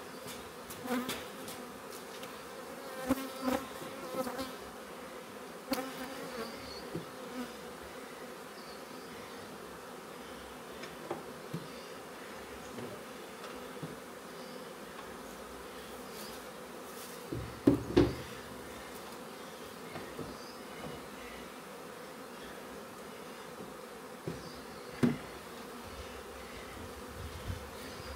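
Honeybees buzzing steadily as they fly in numbers around an opened, disturbed hive. A few short knocks break through, loudest a pair about 18 seconds in, as the wooden hive boxes are handled.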